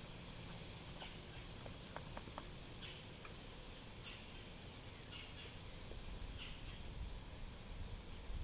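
Young chickens, about seven weeks old, giving short soft peeps every second or so, with faint pecking and scratching in the wood-chip ground.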